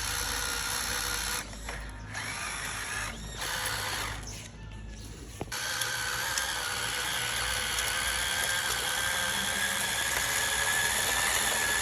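Electric motors and plastic gearboxes of radio-controlled construction models whirring with a high whine. The sound drops away and sputters for a few seconds soon after the start, then comes back steady with the whine slowly rising.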